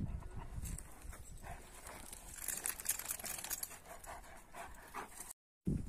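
Kangal shepherd dogs play-fighting and moving about on stony dirt: faint scuffling of paws and bodies, with light panting. The sound cuts out briefly near the end.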